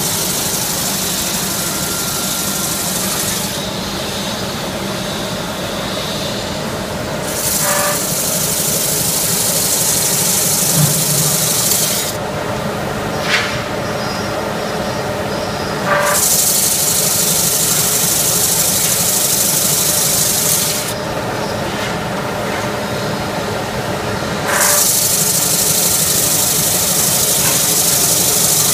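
Automatic sanding machine for wooden chair parts running with a steady hum, with a loud abrasive hiss each time a wooden part is sanded; the hiss comes and goes four times, each pass lasting about four to five seconds.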